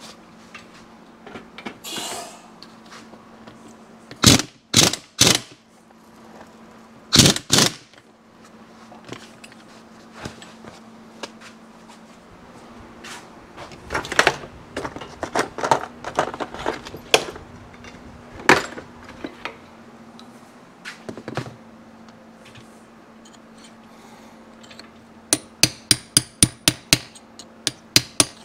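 Pneumatic impact wrench tightening a motorcycle countershaft sprocket nut in short bursts: three quick bursts about four seconds in and two more a couple of seconds later. Tools clatter after that. Near the end a hammer taps a punch in a quick, even run of about four taps a second, bending the sprocket's lock tab over the nut.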